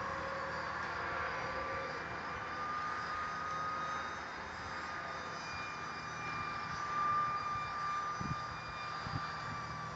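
Electric ducted fan of a ParkZone AS3X MiG-15 radio-controlled jet in flight: a steady high whine that wavers slightly in pitch, over a hiss. A few soft low knocks come near the end.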